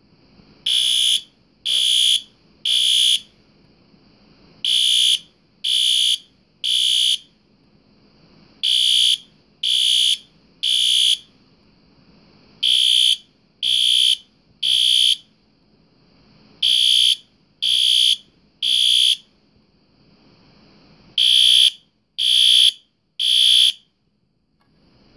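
System Sensor SpectrAlert Advance PC2W ceiling-mount horn strobe sounding loud in the temporal code 3 pattern: three half-second horn blasts, a pause of about a second and a half, repeated six times before it stops near the end. Temporal-3 is the standard building-evacuation signal.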